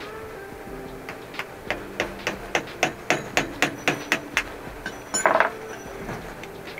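About a dozen quick metal taps, roughly four a second, as a hammer strikes the tool held against a Gazi electric water pump to work its bearing loose. Near the end a short, louder metallic rattle.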